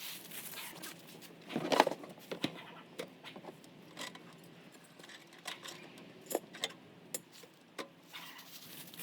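Small metallic jingles, clicks and knocks from scrap being handled, with a louder clatter about two seconds in.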